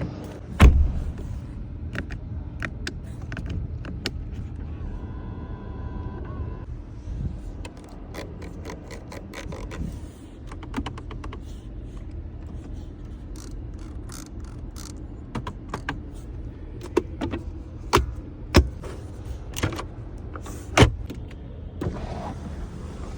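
A BMW X5's fittings and controls being worked: a run of clicks and knocks, several of them loud (one about half a second in, others around two-thirds of the way through), and a short electric-motor whine about five seconds in, over a steady low rumble.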